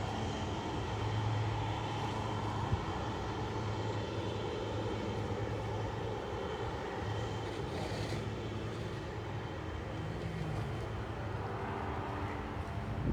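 Aircraft engine noise: a steady rush with a low hum underneath.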